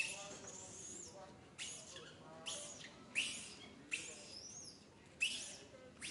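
An infant long-tailed macaque screaming and crying: about six sharp, high-pitched squeals in a row, each starting suddenly, sliding in pitch and then fading.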